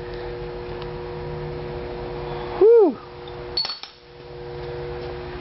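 Steady background hum of two low tones. About halfway through comes one short, loud vocal exclamation that rises and falls in pitch, followed by a brief metallic clink from the seat belt's buckle.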